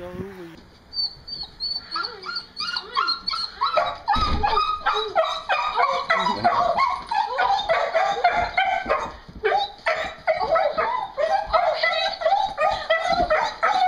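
A dog whining and yipping excitedly in a rapid string of short, high, wavering cries, the sound of an overjoyed greeting of its returning owner.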